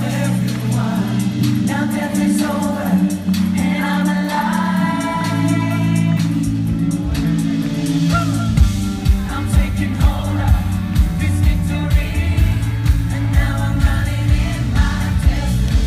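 Live worship band playing: singers over sustained bass and keyboard chords. About halfway through, a kick drum comes in with a steady beat, about two a second.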